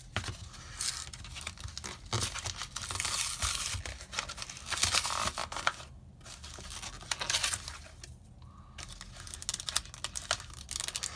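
Cardboard-and-plastic retail blister packaging torn and peeled apart by hand, with tearing card and crinkling plastic in several bursts and short pauses between them.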